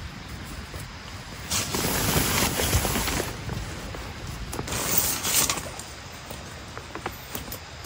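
Tent fabric rustling in irregular swells as the inner tent is handled and hooked onto the frame pole, with a few small clicks from the hooks.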